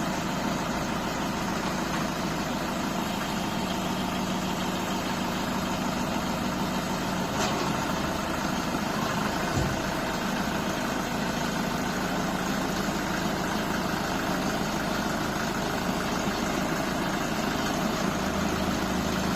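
Diesel engine of an MC504 tractor running steadily at low speed while the tractor is inched along a wet flatbed deck. A couple of faint clicks sound about seven and nine and a half seconds in.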